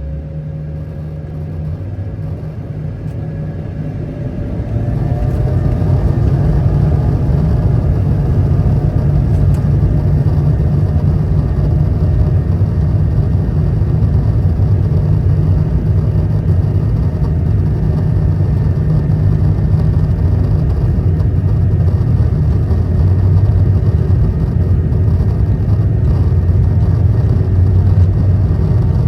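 Airbus A220-300's Pratt & Whitney PW1500G geared turbofan engines spooling up to takeoff thrust, heard inside the cabin: a rising whine as the sound swells over the first few seconds, then loud, steady engine noise with a low rumble through the takeoff roll.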